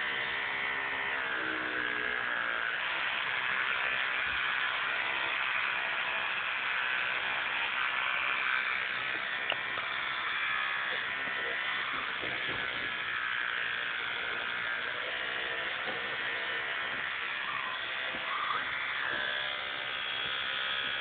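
Child's battery electric toothbrush running with a steady buzz.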